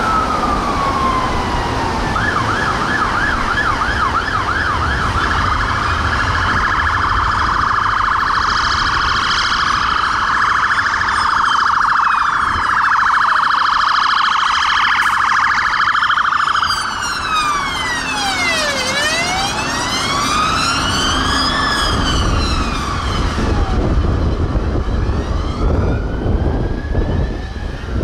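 Fire engine sirens sounding as appliances pass, several at once. A slow wail gives way to a fast yelp about two seconds in, and slow rising and falling wails return past the middle and near the end. Heavy vehicle engines rumble underneath.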